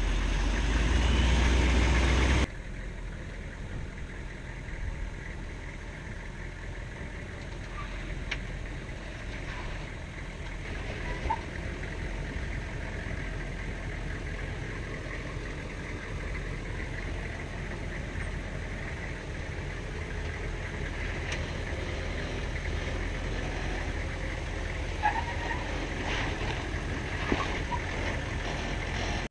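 Humvee engine running at crawling speed over rock, heard from outside the vehicle. It is louder for the first couple of seconds, then fainter and steady for the rest, with a few small knocks.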